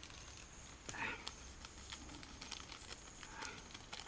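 Faint crinkling of a plastic seasoning packet being handled and opened, with a few soft clicks. A thin, steady high-pitched tone runs underneath.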